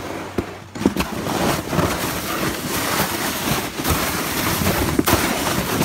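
Sled sliding fast down a packed-snow run: a steady rushing hiss of the sled over the snow mixed with wind on the microphone, building about a second in, with a few sharp bumps and knocks as it hits ridges.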